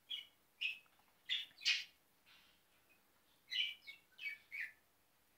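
Green budgerigar giving short, high chirps and chatter calls in two bouts: a quick run of about five in the first two seconds, then four more about a second and a half later.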